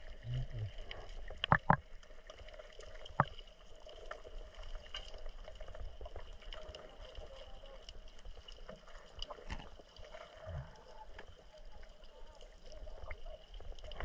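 Muffled underwater sound picked up by a submerged camera: a faint steady hum, with a few sharp knocks, the loudest a pair about a second and a half in and another about three seconds in.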